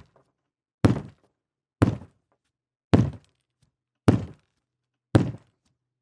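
Five bangs on a solid object, about a second apart, each one dying away within a fraction of a second.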